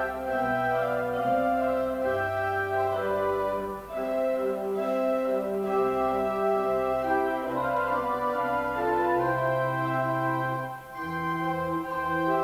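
Slow organ music: sustained chords held for a second or two each over a moving bass line, with brief breaks between phrases.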